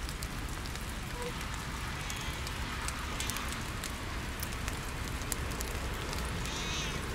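Steady rain falling on the forest floor and dead leaves, a continuous hiss with scattered sharp drop ticks.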